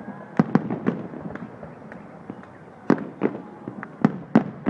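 Aerial firework shells bursting: a string of sharp bangs at uneven spacing, with crackling between them and a quieter spell in the middle. The loudest bangs come about three seconds in and near the end.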